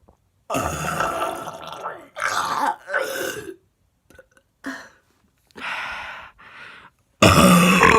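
A woman burping repeatedly: a long burp about half a second in, several shorter ones after it, and the loudest one starting near the end.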